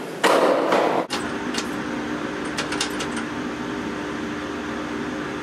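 Hurried footsteps in a stairwell for about a second, then a steady mechanical hum inside a lift car, with a few quick clicks about half-way through.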